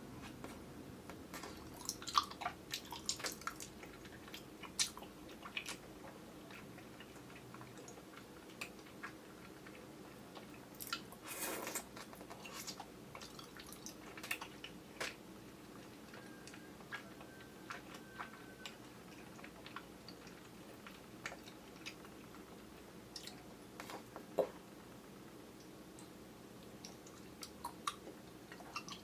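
Chewy kyoho grape jelly being bitten and chewed: scattered wet, squishy mouth clicks with a longer burst about eleven seconds in, over a steady low hum from the camera's built-in microphone.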